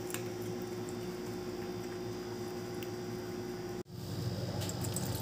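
Steady background hum with a faint steady tone and a few faint clicks. It cuts out abruptly near the end, then a louder steady hiss comes in.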